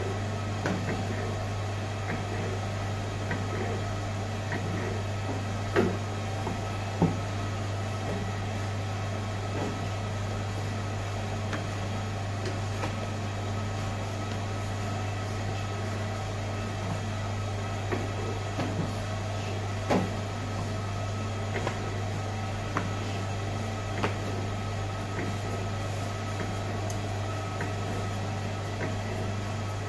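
A steady low mechanical hum from kitchen machinery runs throughout. Over it come scattered soft knocks and slaps as pieces of puff-pastry dough are handled and laid on a floured worktop, a few of them sharper.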